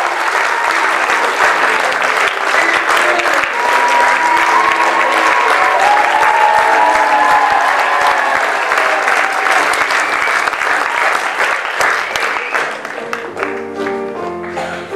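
Audience and cast applauding, with music playing through the clapping. The applause thins out in the last few seconds and the music comes to the fore.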